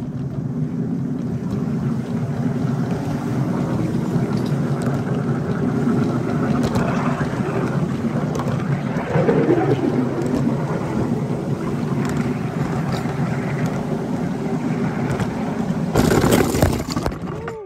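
Small 7 1/4-inch gauge work train getting under way and rolling along the track: a steady rumble of wheels on rail that builds in the first second. Near the end comes a loud burst of handling or wind noise on the microphone.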